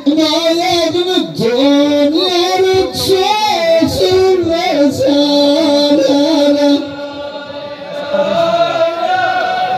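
A solo voice sings a long, ornamented phrase of Souss Amazigh sung poetry (Ahwach), holding drawn-out notes with no drumming. About seven seconds in it drops back and a quieter held note carries on.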